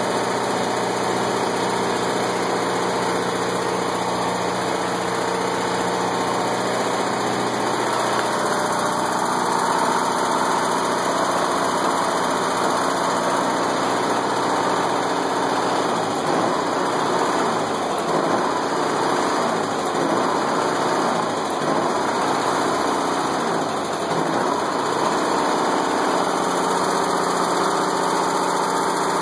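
Onan JC 12.5 kW generator's engine running steadily, its tone becoming less even in the second half.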